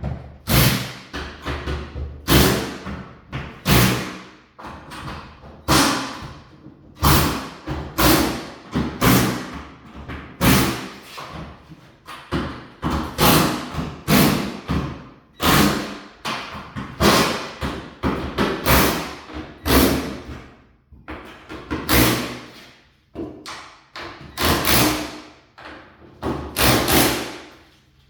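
A long run of loud knocks and thuds, roughly one a second with short pauses, each ringing out briefly, from work on garage door hardware.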